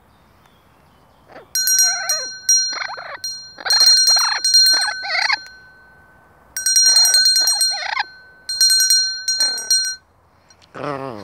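A small brass hand bell rung in quick shakes in two spells, its steady ring held between strikes, while a blue-fronted Amazon parrot gives short squawking calls between and over the ringing, with one more call near the end.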